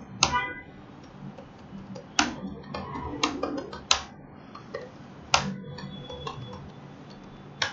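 Computer keyboard being typed on: irregular keystroke clicks, a few louder than the rest.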